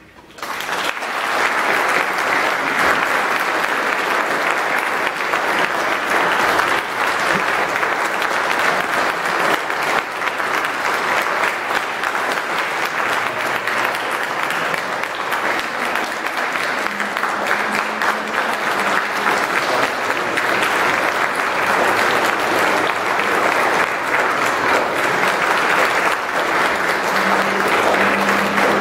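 Audience applauding, breaking out suddenly about half a second in and going on steadily.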